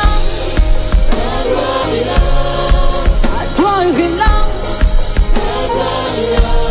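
Gospel worship music: a drum kit keeps a steady beat under held chords, while a voice slides up and down in short wordless runs.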